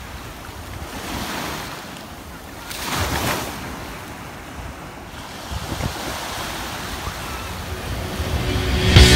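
Small waves breaking and washing up the sand, with wind on the microphone. The wash swells about a second in and is loudest about three seconds in, then builds again near the end. Music cuts in at the very end.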